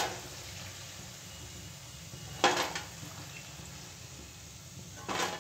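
Slotted metal spoon clinking against the kadhai and steel plate as fried okra pakoras are lifted out of hot oil, with faint sizzling of the oil between. Two clinks, about two and a half seconds and five seconds in.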